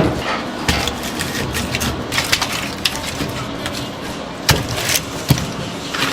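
Several sharp knocks and clacks over steady background noise, the loudest two about four and a half and five and a quarter seconds in.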